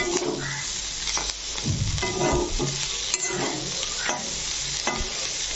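Brinjal (eggplant) pieces coated in spice powder and coriander leaves being stirred and scraped around a hot pan, with repeated irregular scraping strokes over the steady sizzle of the frying oil.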